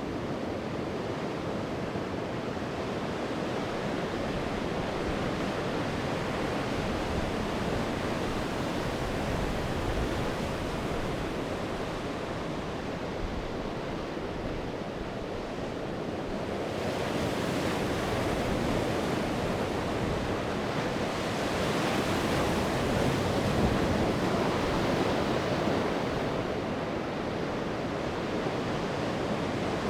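Sea waves breaking and washing on the shore, a steady rushing wash that swells louder about two-thirds of the way through, with some wind.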